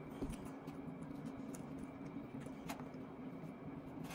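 Eating sounds: quiet chewing and a few light clicks of a plastic fork against a disposable plate, over a steady low hum.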